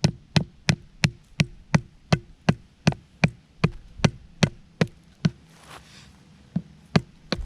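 Back of a hatchet pounding a wooden stake into soft ground, sharp blows about three a second with a short pause about five seconds in before the blows resume.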